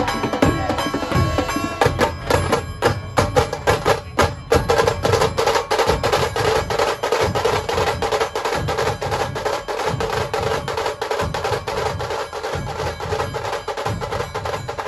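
Live band music driven by fast, dense drumming, with a held melody line joining about four and a half seconds in.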